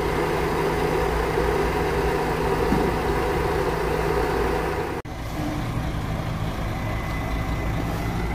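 Diesel engine of a Mercedes-Benz-chassis Marcopolo G8 double-decker coach running steadily at idle, with a sudden break about five seconds in.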